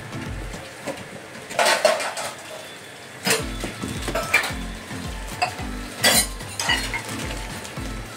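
A boxed dosa tawa being unpacked: cardboard and a plastic bag rustle and the pan knocks against its box in several short bursts. Background music with a steady bass beat runs underneath, its bass coming in about three seconds in.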